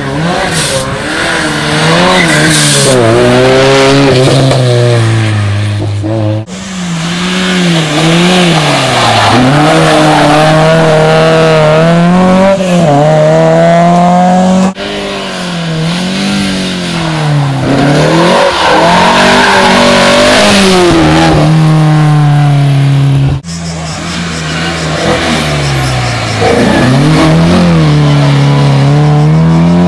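Historic rally car engines at full race pace, revving hard: the pitch climbs and drops again and again as the cars change gear and brake. The sound cuts abruptly three times as one car gives way to the next.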